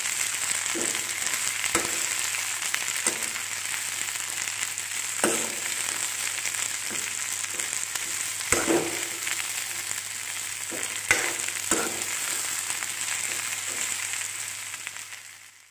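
Chopped long beans and potato sizzling in oil in an iron kadai, stirred with a spatula that scrapes and knocks against the pan every few seconds. The sizzle fades out near the end.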